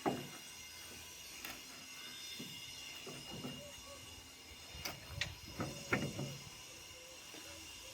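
Faint scattered knocks and clicks: one sharp one at the start, then several more between about five and six seconds in.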